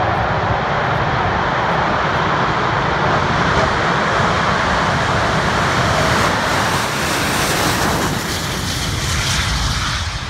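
English Electric Lightning jet fighter on a high-speed run down the runway, its twin Rolls-Royce Avon turbojets at full afterburner, making a loud, steady roar. It passes close about six seconds in, then draws away, with the sound beginning to fade near the end.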